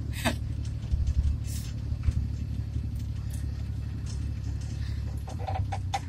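Steady low rumble of engine and road noise inside the cabin of a small vehicle being driven, with a few faint clicks.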